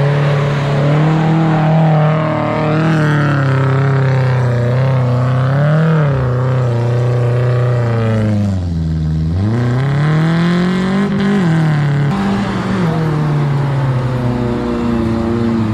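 Off-road 4x4 engine working under load, its revs rising and falling as the driver works the throttle over rough ground. It drops sharply about halfway through, then picks back up.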